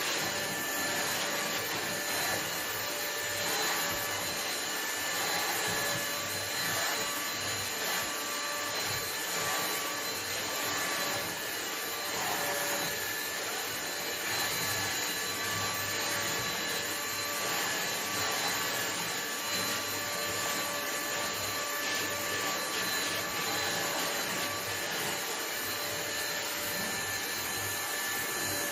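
Vacuum cleaner running steadily: a constant rush of air with a steady high motor whine over it.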